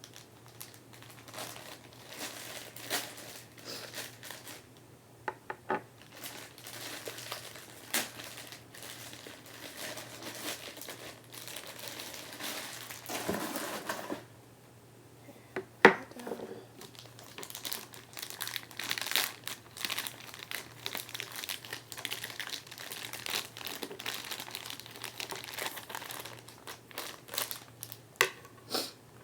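Plastic figurine packaging crinkling and rustling as it is handled and unwrapped, with scattered clicks and one sharp snap about sixteen seconds in. A faint steady low hum runs underneath.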